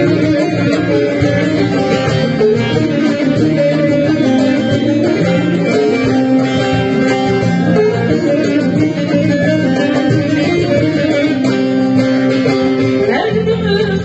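Live Turkish folk music played on stage: an instrumental passage led by a bağlama (long-necked saz) over a hand-drum rhythm.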